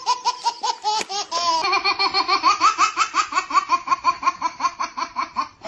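Babies laughing hard, in a long run of rapid, high-pitched laughs of about five a second. About a second and a half in, a second baby's laughter takes over.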